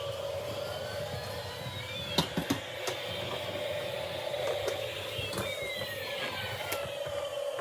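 Toy police helicopter's electronic siren: a slow wail rising and falling in pitch over a steady electronic hum. A few sharp clicks come about two to three seconds in.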